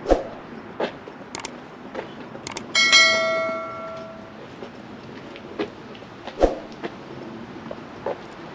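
A bell struck once about three seconds in, its ring dying away over a second or so, among scattered sharp knocks and clicks.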